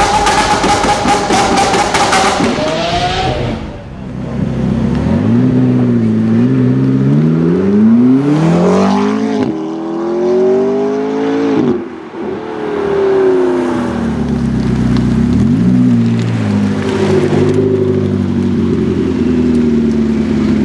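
McLaren 650S's twin-turbo V8 through an Akrapovic exhaust, revving and accelerating hard, its pitch climbing and dropping several times. The first few seconds are a loud logo intro sound before the engine comes in.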